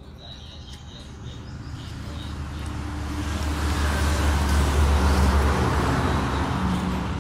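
A motor vehicle passes by: its engine and road noise rumble, growing louder to a peak about two-thirds of the way in, then fading away.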